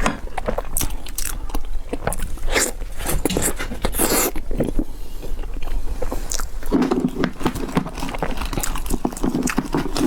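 A person eating close to the microphone: biting and chewing, a rapid run of short clicks and crunches, with fuller, lower chewing from about seven seconds in.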